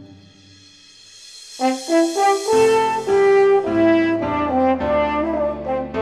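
Background music: brass instruments playing a melody that comes in about a second and a half in, after a brief quieter stretch with a swelling hiss.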